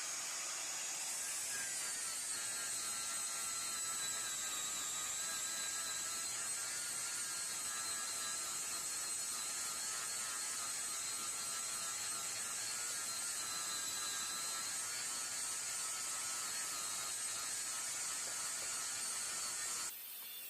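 High-speed power grinder running steadily with a high-pitched whine, grinding the casting marks off a cast-iron vise; it cuts off abruptly near the end.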